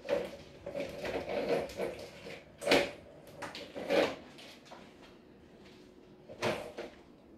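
A series of irregular knocks and scrapes, the loudest a little under 3 s in and again about 4 s in, with another near the end.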